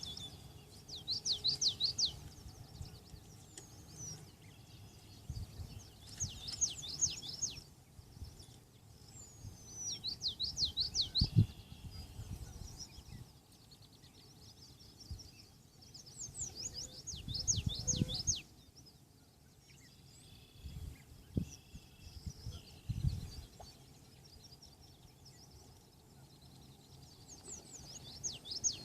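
A songbird repeating a short phrase of quick high sweeping notes, each phrase about a second and a half long and coming back every few seconds, over a low outdoor rumble with a few dull low thumps.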